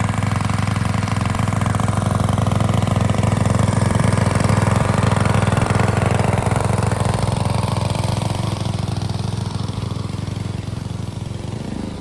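Small petrol engine of a portable water pump running steadily, pumping water out of a river stretch. It grows a little quieter in the last few seconds.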